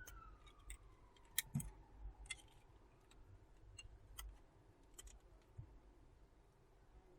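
Faint, scattered small clicks and taps of hand tools and parts being handled during a phone repair, about eight in the span, irregularly spaced.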